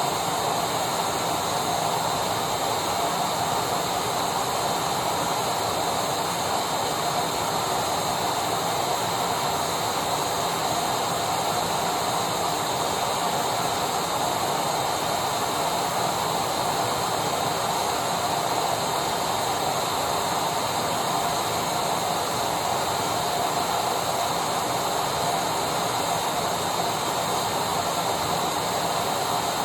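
Electric vacuum cleaner running steadily: an even rushing hum with a thin high whine over it.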